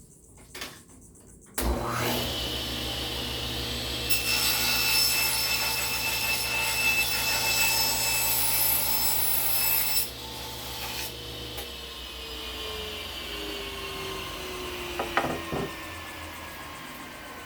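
1948 Walker-Turner table saw, on its original motor, switched on with a thump and running up. Its blade cuts through a 1x board for about six seconds. The saw then runs free and is switched off, spinning down with a falling whine.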